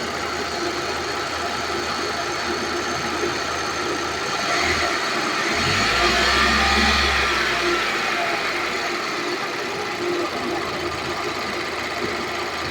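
Hyundai i10 engine running with the AC compressor engaged; the noise is put down to a worn AC compressor bearing. About five seconds in, the engine speed rises and then settles back to a steady run about three seconds later.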